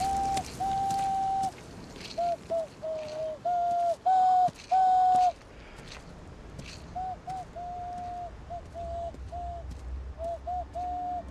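Hand whistle blown through cupped hands: a run of hollow hooting notes like a dove's coo, some short and gliding, some held. The loudest notes come at the start and about four to five seconds in, with softer notes after.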